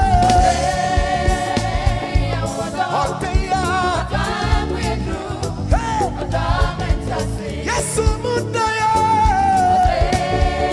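Live gospel music: a singer holding long, wavering notes over a band with bass and drums, the held notes coming at the start and again near the end.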